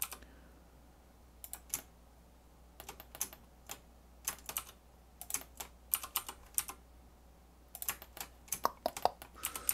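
Computer keyboard keys tapped in short, irregular clusters of clicks with brief pauses between them, the sound of keyboard shortcuts during 3D modelling work.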